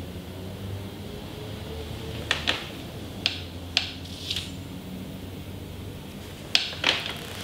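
Steady low room hum with a few short, sharp clicks and crackles: a pair about two seconds in, a few more around four seconds, and another pair near the end.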